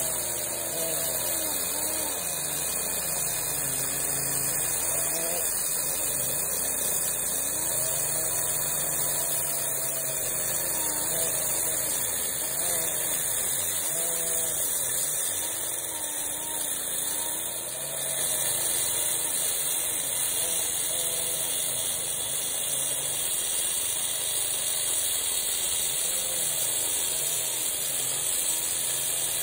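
Stihl TS 420 two-stroke cut-off saw running under load, its blade grinding through a concrete slab. The engine pitch wavers up and down as the cut loads it.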